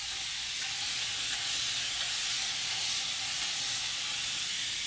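Spray bottle misting water onto hair in one steady, unbroken hiss.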